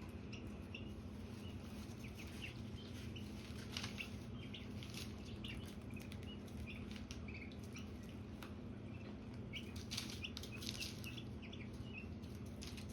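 Ducklings peeping in short high chirps, with scattered small splashes and clicks of bills in a bowl of water as they dabble for peas, over a steady low hum.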